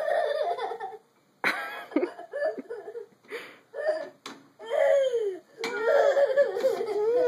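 A toddler's high-pitched voice laughing and squealing in several short bursts with brief gaps, then a longer wavering squeal near the end.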